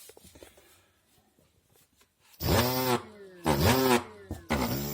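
Kugoo S3 electric scooter's hub motor humming loudly in three bursts starting about halfway in, the buzz dipping and rising in pitch, with a faint falling whine. It is the fault the title names: the motor hums as it tries to run and then cuts out, alongside a motor error.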